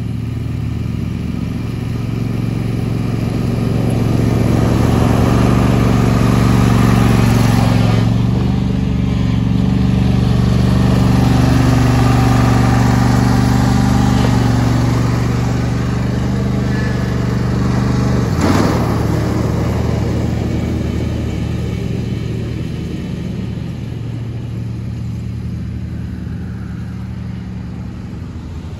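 John Deere S120 riding mower's V-twin engine running steadily while mowing grass. It grows louder as the mower comes close, then fades as it moves away. One brief sharp knock comes about two-thirds of the way through.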